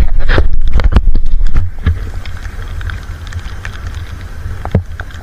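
Wind buffeting the camera's microphone as a heavy low rumble, loudest for the first second and a half and then steadier, with scattered raindrops tapping on the camera in the rain.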